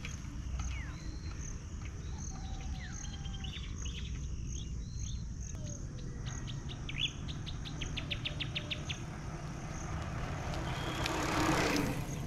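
Birds chirping and calling with short rising and falling notes, and a rapid run of clicks a little past the middle. Under them is a steady low rumble and a faint high tick about twice a second. A hissing swell rises near the end.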